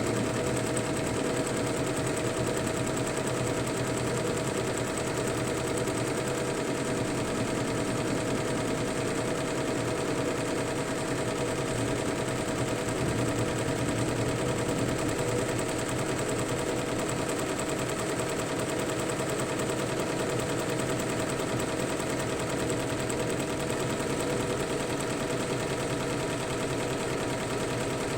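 Single-head, 15-needle Fuwei computerized embroidery machine stitching steadily: a fast, even run of needle strokes over a steady hum.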